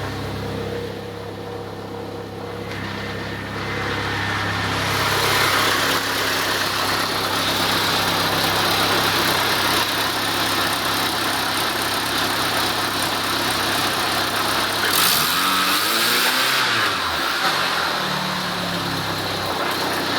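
Mitsubishi 4G63 turbocharged four-cylinder engine running with a buzzing sound, which the owner puts down to bearings or a blown T28 turbo. It gets louder about four seconds in, and is revved up and let back down near the end.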